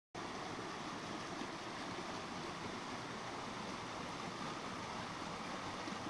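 A creek flowing, a steady even rush of water.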